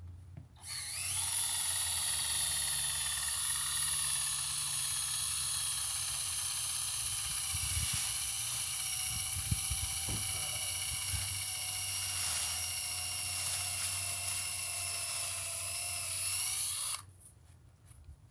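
Power drill boring into an aspen stump, drilling holes for stump poison. It spins up about half a second in, runs steadily with its pitch sagging slightly under load, and stops near the end.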